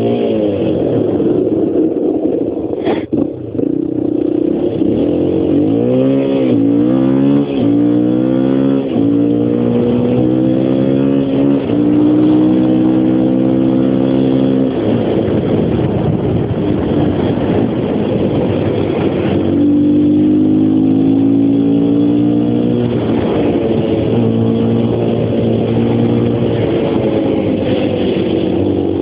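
Honda XR250's single-cylinder four-stroke engine pulling under way, its revs climbing, holding and dropping back as it changes gear. A single sharp knock comes about three seconds in.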